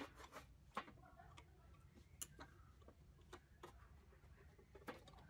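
Faint, irregular clicks and taps of small metal parts on a small electric gear motor's mounting plate as it is handled and a screw is driven with a screwdriver.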